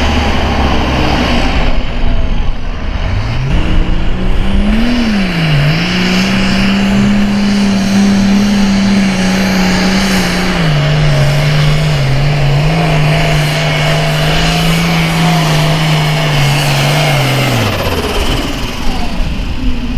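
Super Farm class pulling tractor's diesel engine at full throttle under load. It revs up about three seconds in and dips once briefly. It holds a steady high pitch, then drops to a lower pitch about halfway through and winds down near the end.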